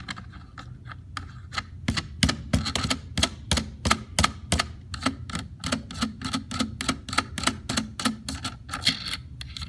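Steady run of sharp metallic clicks, about four a second, as the nut is run onto the .410 AR upper's barrel.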